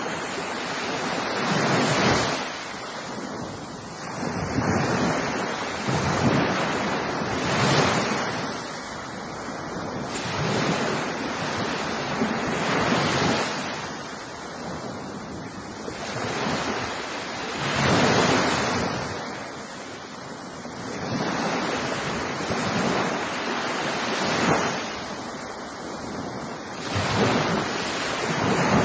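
Ocean waves breaking: a rushing surf that swells and falls away about every few seconds, each wave rising to a loud wash and then receding.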